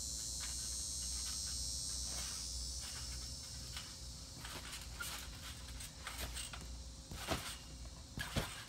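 Insects buzzing steadily at a high pitch, strongest in the first few seconds. Through the second half come scattered sharp thumps of kids bouncing, flipping and landing on a trampoline mat, the loudest two near the end.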